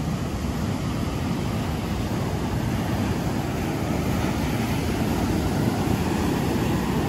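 Ocean surf breaking on the beach, mixed with wind rumbling on the microphone: a steady low rush with no breaks.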